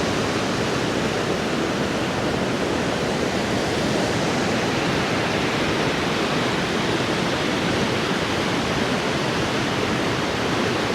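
Large waterfall pouring, a steady, even rush of falling water heard close to the falls in their mist.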